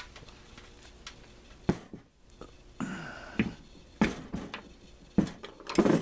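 A few sharp knocks and clinks of metal transmission parts, among them a planetary carrier, being handled and set down on a wooden workbench, the loudest cluster near the end.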